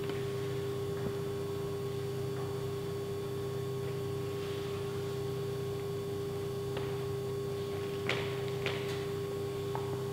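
A steady hum with a few faint short knocks, most of them about eight to nine seconds in, as a barefoot climber grips and shifts on a steel pallet-racking frame.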